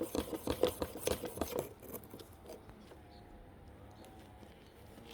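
A steel hair-clipper cutting blade being stroked quickly back and forth on a diamond sharpening stone, about five scraping strokes a second, which stop less than two seconds in.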